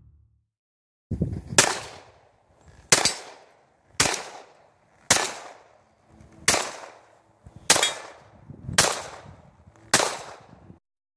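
Eight shots from an Armscor Citadel full-size 1911 pistol fired at a steady pace of about one a second, each a sharp crack that dies away quickly.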